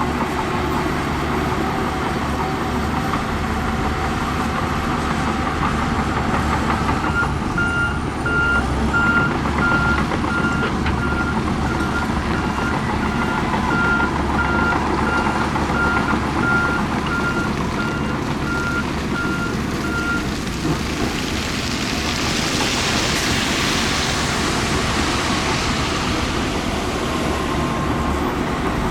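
Heavy diesel construction machinery running steadily, with a reversing alarm beeping about twice a second for some thirteen seconds as a machine backs up. A hissing rush rises in the latter part.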